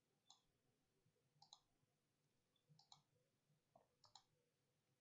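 Faint computer mouse button clicks, most in quick pairs, about one every second and a half.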